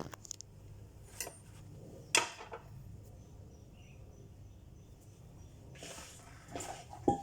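A few separate clinks and knocks of kitchen utensils and bowls being handled over a low steady room hum, the loudest about two seconds in.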